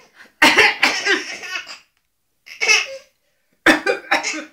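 A baby's laughter and short, put-on fake coughs, in three bursts: one long one, then two short ones.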